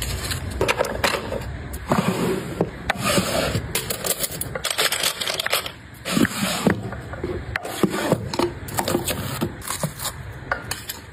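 Hands packing small nail supplies into wooden drawers: alcohol prep pad packets rustling, and plastic tools and nail files tapping and scraping against the wood. It comes as an irregular run of short clicks, taps and rubs.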